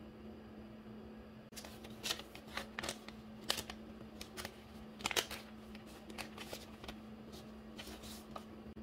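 Clear plastic packet and thin paper lace die-cuts crinkling and rustling as they are handled and pulled out by hand: a run of short crackles starting about a second and a half in, over a faint steady hum.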